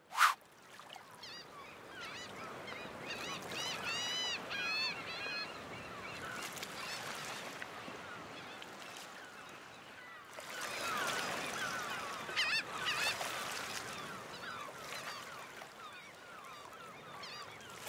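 A flock of gulls calling over steady surf, with a run of repeated arching calls a few seconds in and a busier stretch of calling just past the middle.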